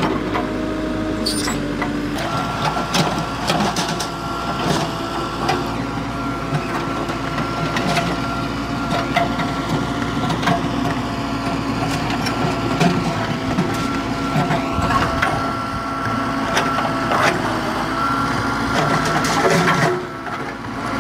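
JCB 3CX backhoe loader's diesel engine running under hydraulic load, its pitch stepping up about two seconds in, with frequent clanks and knocks as the backhoe bucket shifts bundles of steel rebar.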